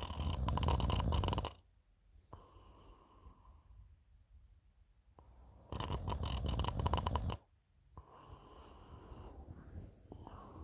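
A sleeping person snoring: two loud, rough, rapidly pulsing snores about five seconds apart, each followed by a quieter airy breath.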